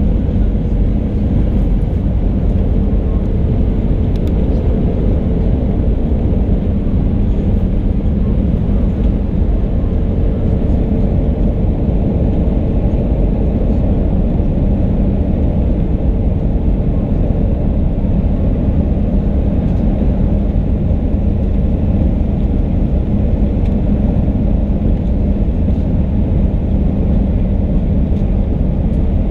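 Airbus A319 passenger cabin noise at a window seat: a steady, loud low rumble of the jet engines and airflow, with a faint steady hum running through it.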